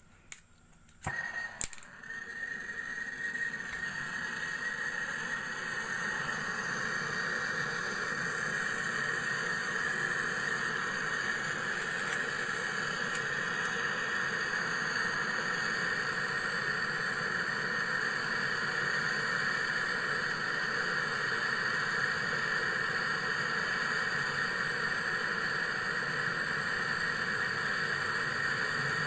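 A few clicks, then a small motor-driven machine starts up, building to a steady running noise within a few seconds and holding constant, during the freon charging of a repaired refrigerator.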